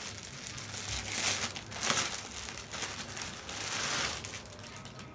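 Plastic garment packaging crinkling and cloth rustling as packaged clothes are handled, in irregular bursts.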